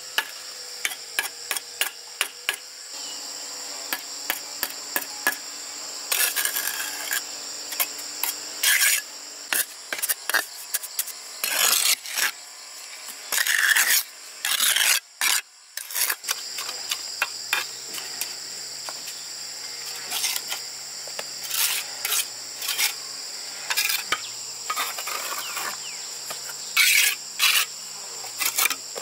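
Irregular rasping and scraping strokes of hand-tool work, with sharp clicks in between, over a steady high shrill of insects.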